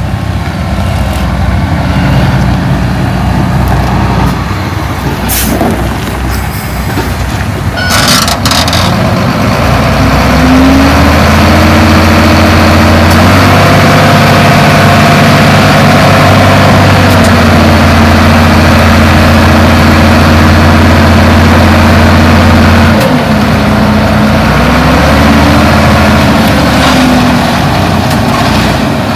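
Heavy diesel engine of earth-moving machinery revving up about ten seconds in and holding a steady high speed for over ten seconds, then dropping back and rising briefly again near the end. A few sharp metallic clanks come before it revs up.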